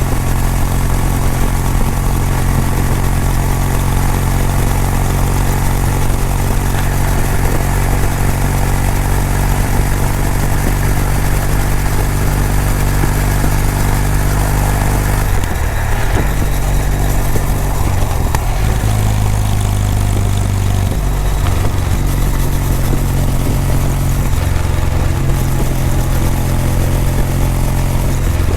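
Kawasaki W800's air-cooled parallel-twin engine and exhaust running steadily on the move. Around the middle the engine note shifts in pitch several times as the throttle and gears change, then it settles into a steady run again.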